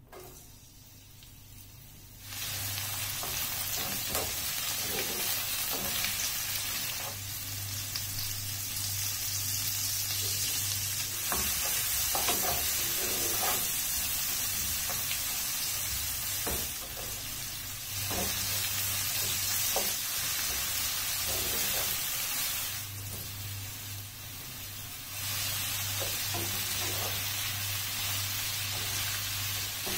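Sliced onions and vegetables frying in hot oil in a nonstick pan, sizzling steadily while a spatula stirs and scrapes through them. The sizzle starts about two seconds in as the onions go into the oil.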